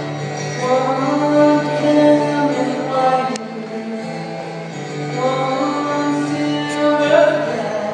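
Woman singing slow, long-held notes over a steady low guitar note, amplified through the hall's PA during a sound check.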